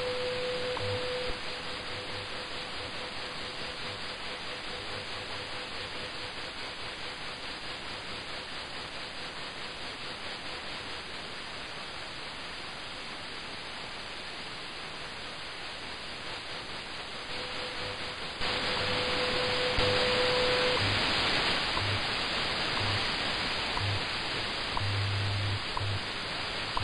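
Shortwave reception of the WWV time station on 10 MHz through a software-defined radio: steady static hiss with WWV's 500 Hz tone, which fades out about a second in and comes back faintly near 17 s before stopping shortly after 20 s. Short low pulses of the station's 100 Hz time code recur under the hiss. The static gets noticeably louder about two-thirds of the way through.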